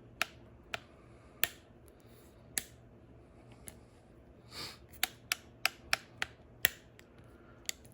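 Ratchet lock of Quinn long-reach hose clamp pliers clicking: sharp single clicks, spaced out at first, then a quicker run of about six clicks, with a short scrape near the middle.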